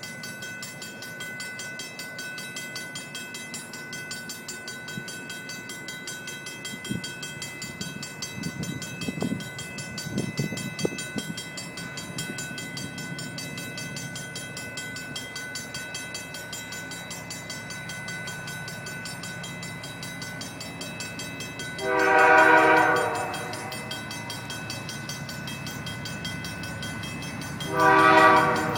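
Train running by with a steady rumble, a thin high steady whine and a few clanks, then a locomotive air horn sounds a blast of about a second and a half about three-quarters of the way in, and another starts just before the end.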